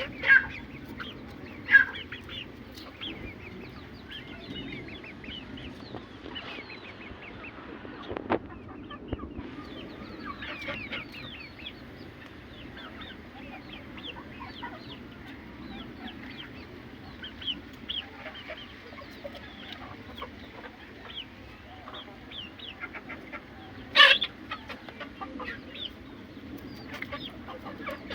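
Aseel chickens clucking and calling over a steady chatter of many short, high chirps, with a few louder calls near the start and the loudest about 24 seconds in.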